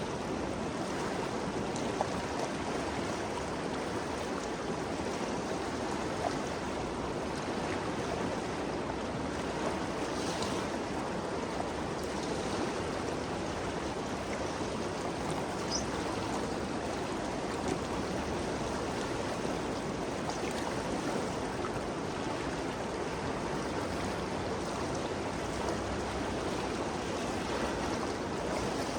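The Ganges River flowing, a steady rushing of water with faint splashes and ticks scattered through it.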